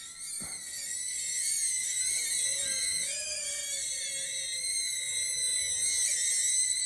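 BetaFPV Cetus micro FPV drone in flight: its small motors and propellers make a high-pitched whine of several tones that waver up and down in pitch together as the throttle changes. The whine grows louder about half a second in.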